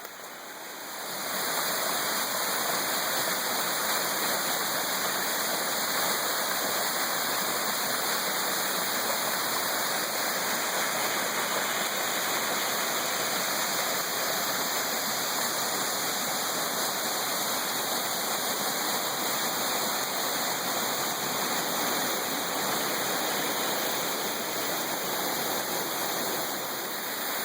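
Waterfall: a steady, noisy rush of falling water, fading up over the first second or two and then holding even.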